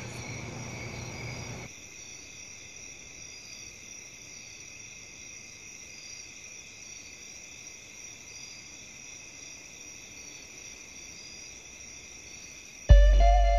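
A steady high-pitched electronic drone, several high tones held together with a slight shimmer, over a faint low rumble that drops away after a couple of seconds. Near the end a sudden deep boom hits and sustained musical notes come in.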